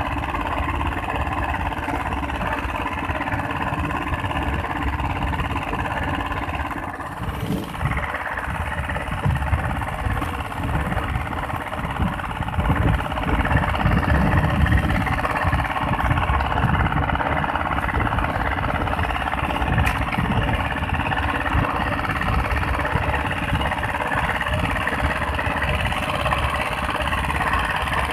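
The small inboard engine of an outrigger fishing boat runs steadily under way. Wind gusts on the microphone and water rushes past the hull.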